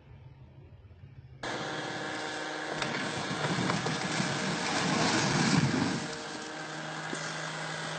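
A faint low hum, then about a second and a half in an engine running loudly with a rushing noise that swells in the middle and eases off near the end, before the sound cuts off abruptly.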